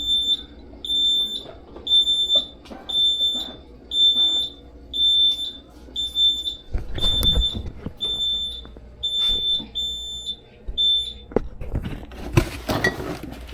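Reverse warning beeper on a homemade crawl-space buggy, giving a high beep about twice a second while the buggy backs up, then stopping near the end. A few knocks and low rumbles come from the buggy moving.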